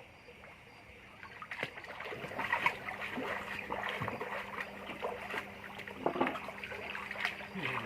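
Water splashing and trickling, with short clattering clicks over a steady low hum. It is quiet for the first second and a half, then busy.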